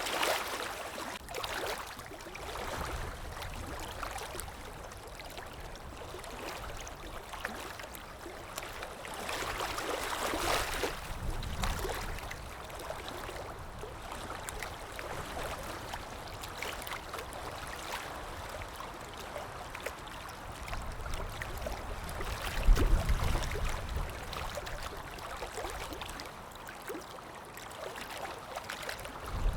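Stream water running and trickling steadily, swelling about ten seconds in, with a brief low rumble a little after twenty seconds that is the loudest moment.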